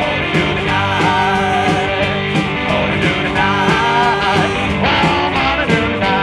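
Background rock music with electric guitar at a steady beat.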